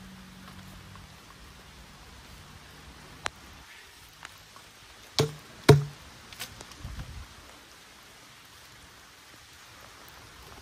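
A length of plastic rainwater downpipe knocked hard against the ground twice, about half a second apart, with a few smaller knocks and a dull thud after, to shake loose the blockage packed solid inside it. Light rain falls steadily behind.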